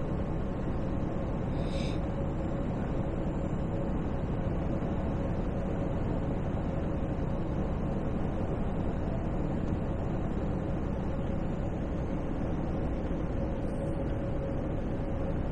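Steady drone inside a semi-truck's cab at highway speed: the diesel engine running evenly with a faint steady hum, under the hiss of tyres on a rain-soaked road.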